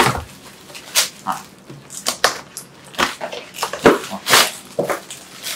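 Plastic shrink-wrap crinkling and a cardboard box being handled and pulled open, in irregular rustles and knocks.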